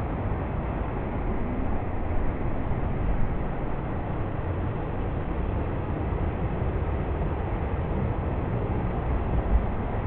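Waterfall pouring into a pool: a steady rushing noise with a fluctuating low rumble, and a brief low thump near the end.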